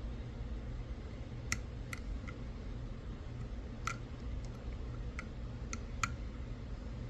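Small, sharp clicks of lock picks working inside a padlock, coming irregularly about a second apart, over a steady low hum.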